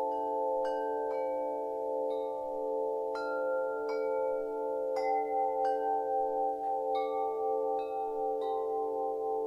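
Chimes ringing over a held drone of several overlapping tones. A new chime is struck about every second at uneven intervals, and each note rings on and fades.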